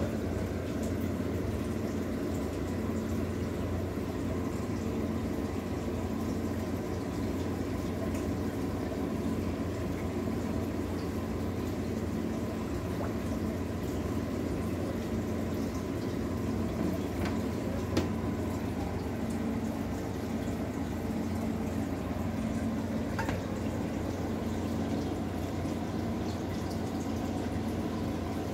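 Fish tank air bubbles and water bubbling and splashing steadily, over a steady low hum of the tank equipment. A single sharp tap about two-thirds of the way through.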